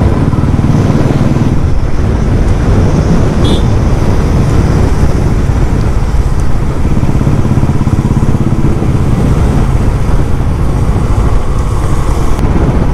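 Royal Enfield Classic 350's single-cylinder engine running steadily at cruising speed, mixed with wind and road rush.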